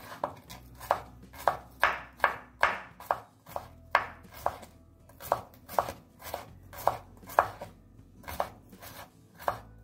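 A large kitchen knife slicing a bitter gourd thin on a wooden cutting board, the blade knocking the board about twice a second, with a short pause around the middle.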